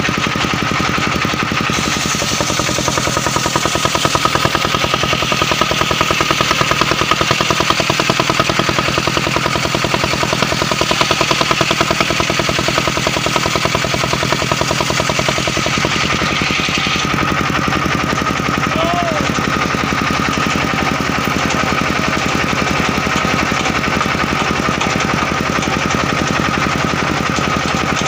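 Engine-driven portable circular sawmill running, its engine running steadily with a fast, even pulse. From about two seconds in until past the middle, a louder hiss is added as the blade cuts through a mahogany log; then the cut ends and the machine runs on without it.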